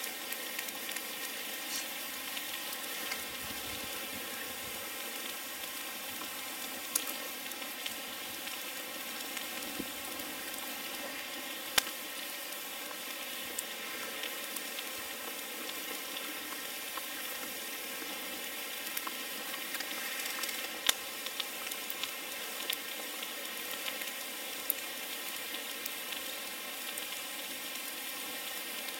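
Steady sizzling hiss with a few sharp pops, from cooking over a burning Swedish torch log.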